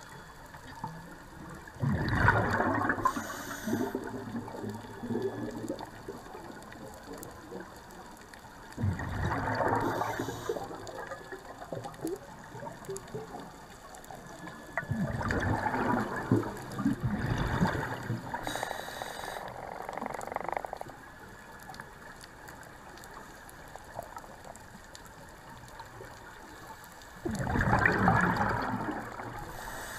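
Scuba regulator breathing underwater: four rushing bursts of exhaled bubbles a few seconds each, spaced several seconds apart, with a low steady hiss between breaths.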